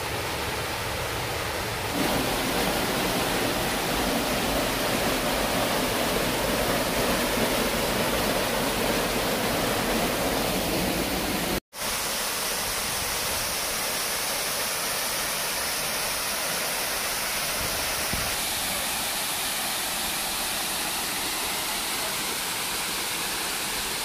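Waterfall's falling water rushing steadily over rock into a pool. It cuts out for an instant a little before halfway and comes back thinner and hissier.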